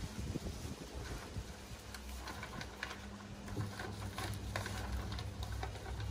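Faint rustling and small clicks of plastic sheeting being handled and pressed into place by hand, over a low steady hum that starts about two seconds in.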